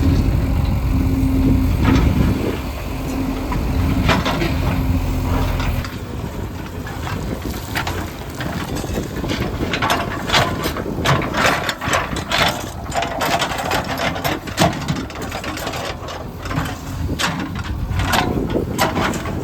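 Heavy diesel construction machine engine running for about six seconds. Then the engine drops back and a long run of irregular clattering, crunching knocks follows, like stones and earth being handled.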